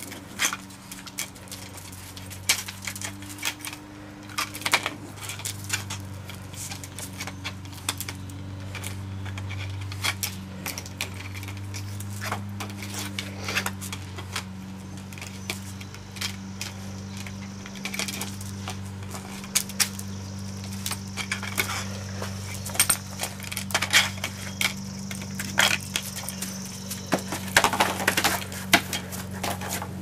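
A plastic washing-machine ring clattering and scraping on concrete as a small dog paws and chews at it: irregular sharp clacks and knocks, busiest near the end, over a steady low hum.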